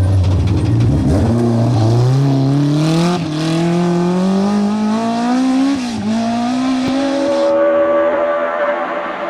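BMW M3 E30 rally car's four-cylinder engine at full throttle, its pitch climbing steadily, with brief breaks for upshifts about three and six seconds in. Near the end the sound suddenly turns duller.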